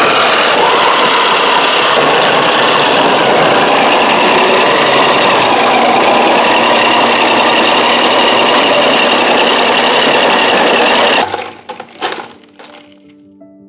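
Kenwood Chef XL Titanium stand mixer with its food-processor attachment running steadily, the fine grating disc shredding hard aged Gouda cheese fed down the tube. The motor and grating noise stop abruptly about eleven seconds in. A few light knocks follow as the shredded cheese is tipped out, and soft music begins near the end.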